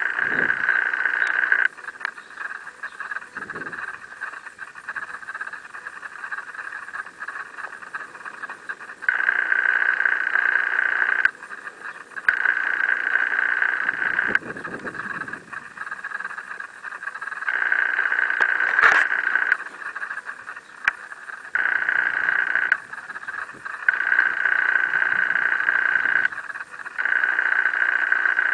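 Frogs calling: a high, steady trill that comes in spells of one to two and a half seconds, starting and stopping abruptly, over a fainter unbroken layer of the same sound. A single sharp click is heard about two-thirds of the way through.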